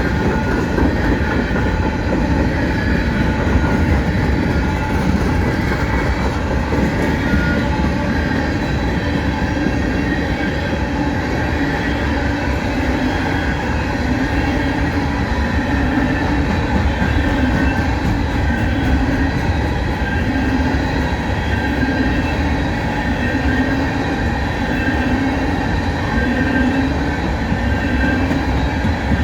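CSX freight train's empty coal hopper cars rolling past: a steady rumble and clatter of steel wheels on rail, with a faint high wheel squeal running through it.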